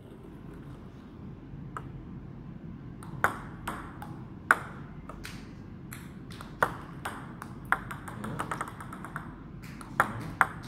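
Table tennis ball striking paddles and bouncing on the table during a practice rally: single sharp clicks spaced a second or so apart at first, then a quicker run of light taps about eight seconds in and again near the end.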